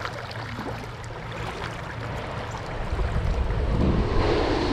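Steady outdoor noise of shallow creek water and wind on the microphone, with a low rumble building about three seconds in.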